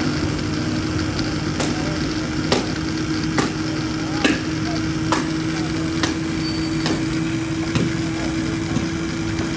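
Steady motor hum with sharp knocks repeating about once a second over street noise.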